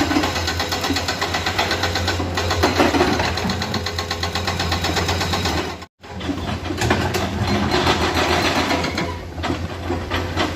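Komatsu excavator's diesel engine running steadily with a fast, even clatter. About halfway through, the sound drops to silence for an instant, then carries on.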